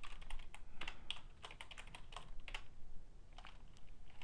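Computer keyboard typing: a fast, irregular run of keystrokes that thins out after about two and a half seconds, with a few more taps near the end.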